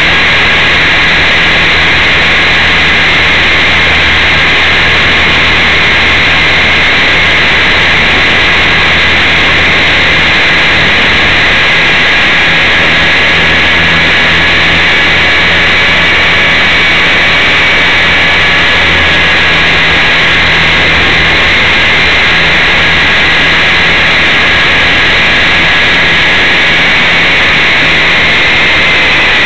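Align T-Rex 450 electric RC helicopter heard through its own onboard camera's microphone: a loud, steady high whine from the motor and drive over a low drone and noisy rush from the rotors. The whine dips slightly in pitch near the end.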